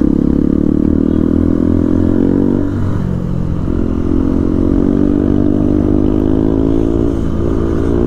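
Motorcycle engine pulling hard under acceleration. Its pitch climbs, drops at a gear change about three seconds in, climbs again, and shifts once more near the end.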